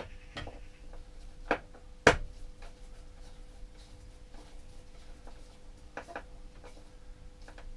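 Scattered clicks and knocks of a wire lead being fitted and tightened into the battery terminal of a solar charge controller, the loudest a sharp knock about two seconds in. A faint steady hum sits underneath.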